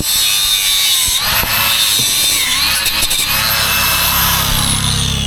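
Angle grinder running against steel with a high whine, its pitch dipping about halfway through. Near the end the whine glides steadily down as the disc spins down.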